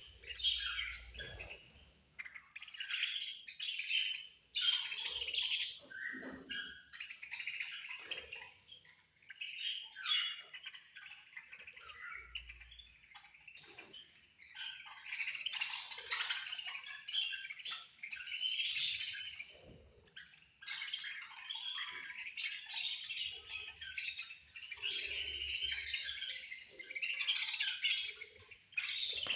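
Several budgerigars chirping and chattering together at feeding time, in bouts of dense high-pitched chirps broken by short lulls.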